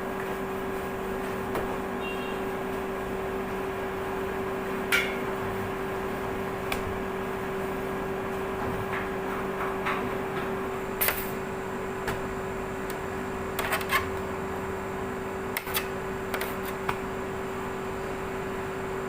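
A steady machine hum with scattered light clicks and knocks, a handful of them between about 11 and 17 seconds in.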